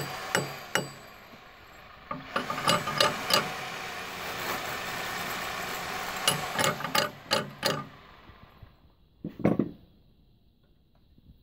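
Sharp metallic clicks and clinks in two quick runs as hand tools and a bar clamp are worked against a marble cladding slab, then a single dull knock near the end.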